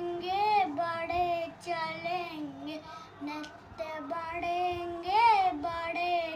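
A young boy singing a Hindi prayer song solo, holding long notes that swoop up and down in pitch, with short breaks between phrases.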